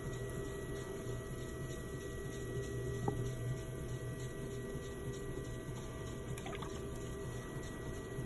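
Electric potter's wheel running steadily, with the wet swish of slip-covered clay under the hands as the thumbs press a hole down into the spinning clay to open it. A couple of faint clicks partway through.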